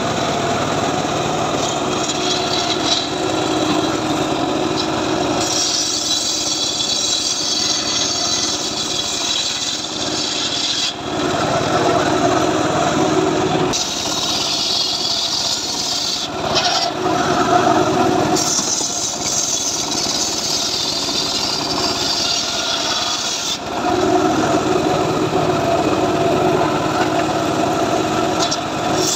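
Homemade table circular saw ripping a trembesi log lengthwise, its blade driven by a steadily running motor. The hiss of the cut swells over several passes lasting a few seconds each, and eases between them as the blade runs free.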